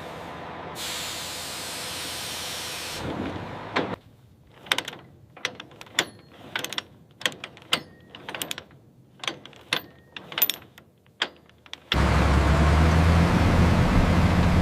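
A steady hiss, then a run of sharp irregular metallic clicks and knocks, a couple a second, then near the end a heavy vehicle engine starts running steadily with a low hum.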